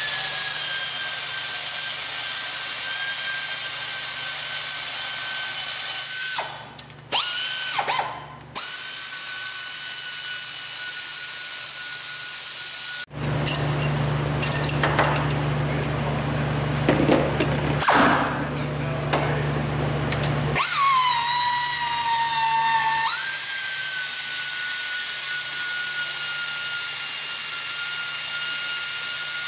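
Power tool running almost without pause, spinning out bolts from the cylinder head of a Subaru EJ253 flat-four through a long extension. It stops briefly a few times in the first half, and its whine drops in pitch for a couple of seconds about two-thirds of the way through as it comes under load, then picks up again.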